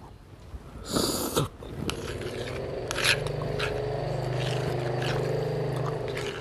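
A motor vehicle engine running steadily, swelling slightly and then fading away. Spoon and fork scrape and clink on a plate, loudest about a second in.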